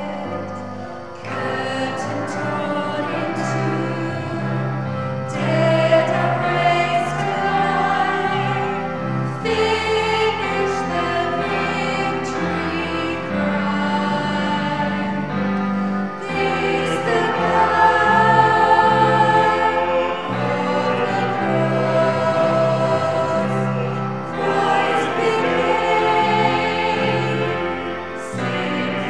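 Choral music: a choir singing held chords over sustained bass notes.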